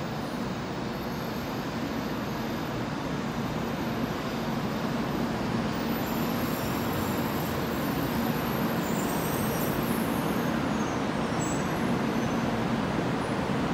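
Kyushu Shinkansen 800-series train pulling slowly into the platform: a steady rush and hum of the train running in, growing a little louder about halfway through, with a few faint high squeaks near the end as it comes to a stop.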